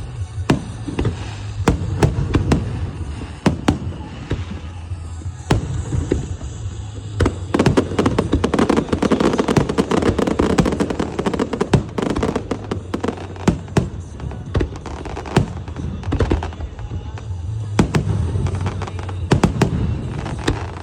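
Fireworks going off: a rapid, irregular run of sharp bangs, thickening into dense crackling about eight to twelve seconds in.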